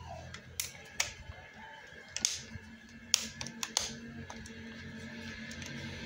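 Sharp plastic clicks and knocks from a hair dryer's plastic casing being handled and snapped together, about half a dozen spread over the first four seconds.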